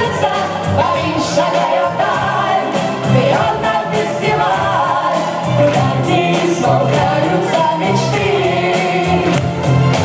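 Live stage performance of a song: singers on microphones joined by a children's choir over a backing track with a steady beat.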